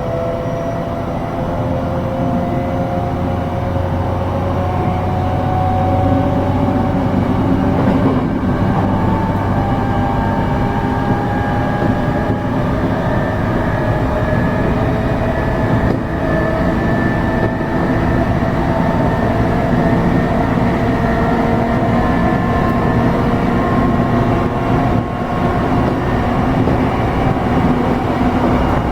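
E233 series electric train running on the Tokaido Line, heard from on board: its traction motor whine climbs slowly in pitch as the train gathers speed, over a steady wheel-and-rail rumble.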